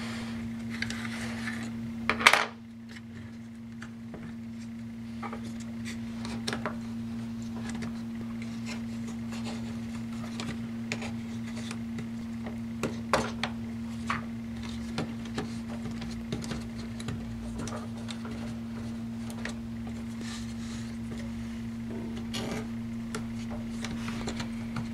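Small clicks, taps and scrapes of hands and a screwdriver working on plastic and metal parts inside an opened laptop, with a sharp loud click about two seconds in. A steady low electrical hum runs underneath.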